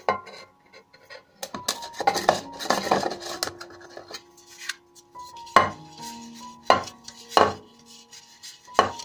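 Fingers rubbing butter around the inside of an aluminium tube cake pan, a scraping, rubbing sound on the metal from about two to three and a half seconds in. After that come four sharp knocks as the pan is handled and knocked against the counter.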